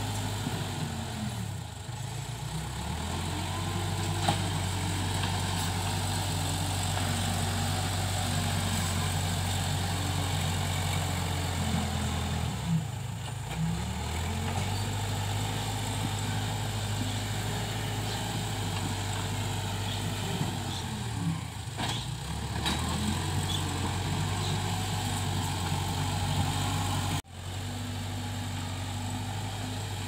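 Case 580K backhoe loader's diesel engine running steadily while working. Its pitch dips briefly three times, about 2, 13 and 22 seconds in, and a few short knocks come through.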